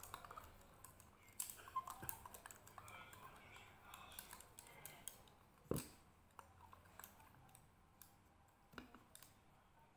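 Green plastic chopsticks and a metal spoon tapping and scraping against a ceramic noodle bowl while stirring noodles: a scatter of small clicks, with one sharper knock about halfway through.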